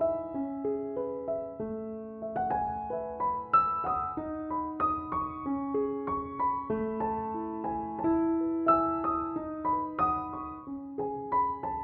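Background music: a slow, gentle piano melody of struck notes that ring on and overlap.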